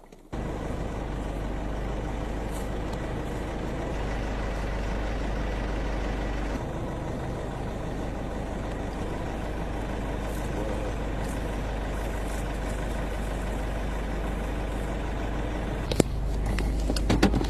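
A vehicle engine idling steadily with a low rumble, then a sharp click near the end.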